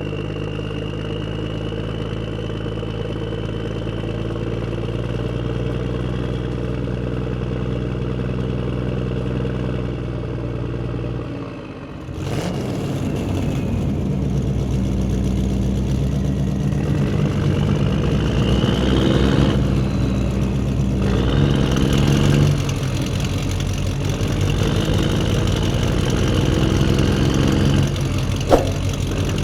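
A truck engine running steadily. About twelve seconds in it breaks off and a different engine sound starts, revving up and down.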